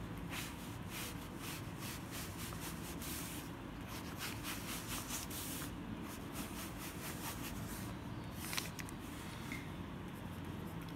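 Pen scratching on notebook paper in many short strokes, writing words and ruling the lines of a table.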